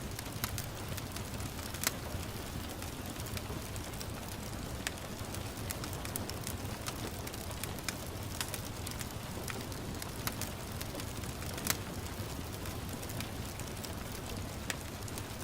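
Wood fire crackling in a fireplace, irregular sharp pops and snaps, the loudest about two seconds in and near twelve seconds in, over a steady hiss of gentle rain.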